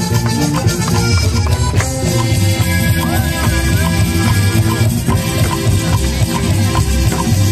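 Accordion-led norteño dance music playing loudly over a PA speaker, with a steady beat.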